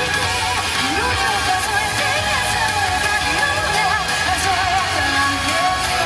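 Japanese pop-rock dance song with singing over guitar and drums, played as music for a yosakoi dance performance.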